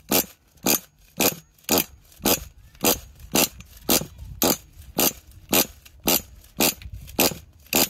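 Pull-start cord of a Losi 8 truggy's nitro engine being yanked over and over, a quick zip about twice a second, the engine turning over without firing.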